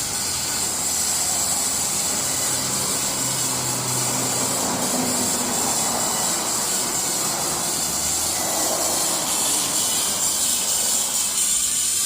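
Hand-built plasma speaker's electric arc giving off a steady hiss and buzz.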